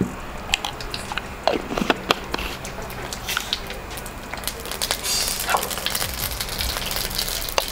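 Mustard seeds popping and spluttering in hot sesame oil in a kadai: scattered sharp pops, with the frying sizzle growing denser about five seconds in.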